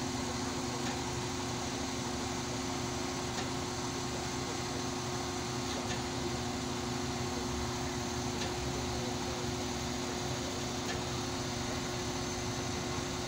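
Mobile crane's diesel engine running steadily as it holds a chiller unit on its boom: an even mechanical drone with two fixed hum tones and a few faint ticks.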